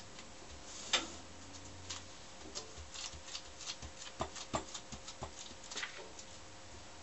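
Gloved hand pressing and rubbing a glued liner panel down onto card bellows stiffeners on a tabletop: irregular soft taps, ticks and paper rustles, with one sharper tap about a second in.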